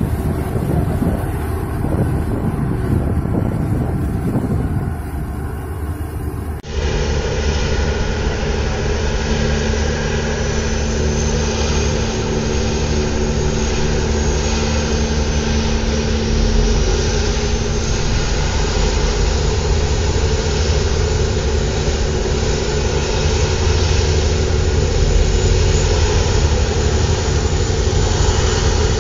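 Offshore pedestal crane's machinery running as a steady drone of several low hums. In the first seconds there is wind on the microphone; about seven seconds in the sound changes abruptly to a steadier, fuller drone.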